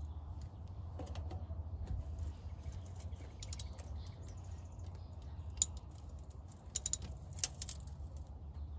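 Hand tools clicking and clinking against metal as a wrench is fitted to an oil filter: a few sharp, separate clicks over a steady low hum.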